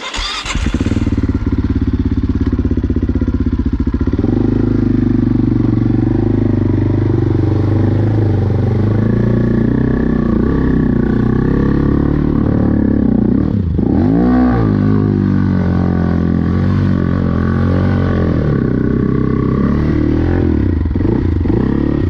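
AJP PR7 adventure motorcycle's single-cylinder engine running under load as the bike is ridden through a river crossing. The engine note dips and rises a few times about two-thirds of the way through as the throttle is worked.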